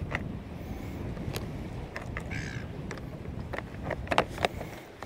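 Scattered light clicks of a clear plastic tackle box of squid jigs being opened and handled, over a steady low background hiss. One short pitched call sounds about two seconds in.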